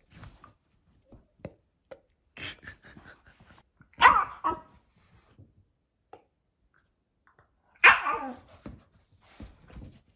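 Shiba Inu barking: three short barks, a softer one about two and a half seconds in and two louder ones about four and eight seconds in.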